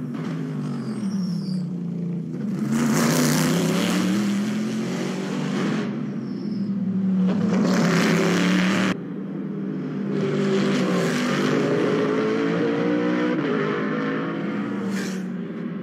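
V8 GT race cars (a Corvette C7.R and a BMW Z4) running hard at racing revs, the engine note swelling and falling away as a car passes twice. About nine seconds in the sound cuts abruptly to another car, whose engine pitch climbs as it accelerates.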